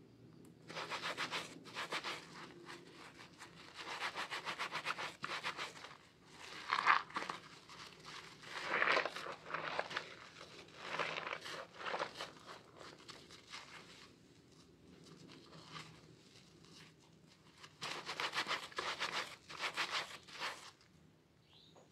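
Wet sponges thick with soap lather being squeezed and kneaded by hand, giving quick crackly squelches in bursts of a second or two, with quieter pauses between.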